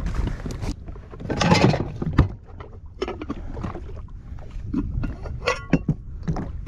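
Handling clatter as gear is got out: a rustle, a sharp click about two seconds in, and scattered small knocks and clicks, over a steady low rumble.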